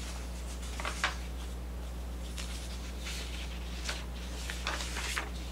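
Steady low electrical hum on the microphone, with a few faint clicks and rubs from a computer mouse and keyboard in use.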